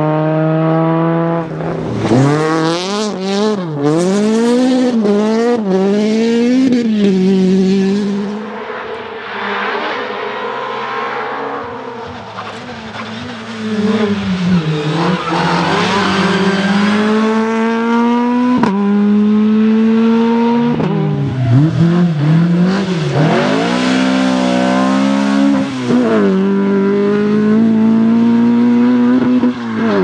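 Opel rally car engines driven hard on a stage, several cars one after another. The engine note climbs sharply, drops at each gear change or lift and climbs again, with a quieter passage about a third of the way through.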